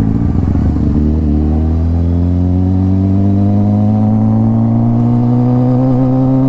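Motorcycle engine pulling hard in one gear at highway speed, its pitch climbing slowly and steadily as the bike accelerates.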